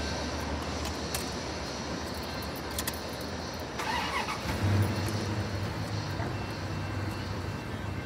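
Road traffic: cars passing on the road, with a steady low hum. A brief higher sound comes about four seconds in, and then a vehicle engine's low hum swells.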